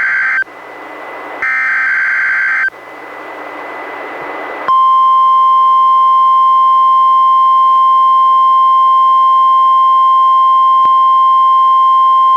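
NOAA Weather Radio emergency-alert signalling on a Reecom R-1630 weather radio during a Required Weekly Test. First come two short bursts of SAME digital header data, with radio hiss between them. About five seconds in, the steady 1050 Hz warning alarm tone starts and holds.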